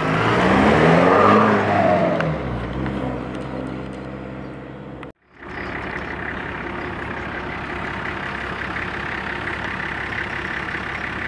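A lifted Jeep Wrangler driving past close by, its engine pitch bending down as it goes by and fading away over a few seconds. About five seconds in it cuts sharply to a steady hum of vehicles.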